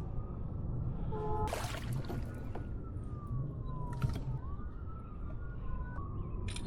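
A siren wailing in a slow rise and fall, heard over a steady low rush of wind and water noise, with a few brief knocks.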